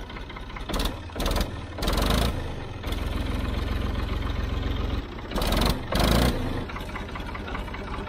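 Old Ford backhoe's engine running, freshly brought back to life after sitting for years, its level rising and falling, with several short loud bursts over the steady rumble.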